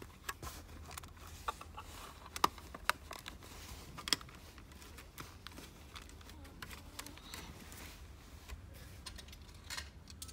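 Plastic LEGO bricks clicking and clattering as pieces are handled and pressed onto a build, with several sharp clicks in the first few seconds and only scattered ones after, over a faint steady low hum.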